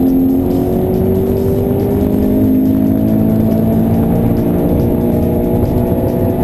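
Toyota 86's naturally aspirated 2-litre flat-four, fitted with an aftermarket exhaust and extractors, accelerating on track, its engine note rising slowly and steadily.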